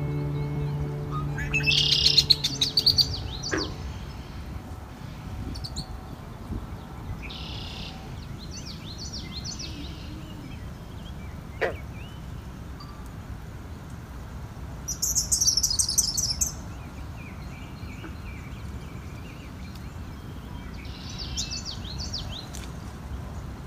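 Songbirds singing: four short song phrases a few seconds apart, the loudest a fast, high, buzzy trill about two-thirds of the way through.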